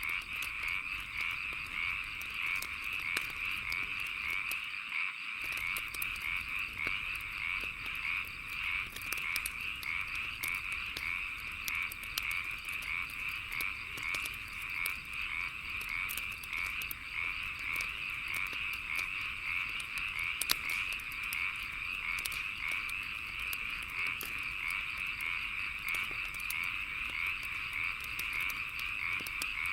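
A dense chorus of frogs calling steadily, with sharp pops and crackles of a wood fire scattered through it.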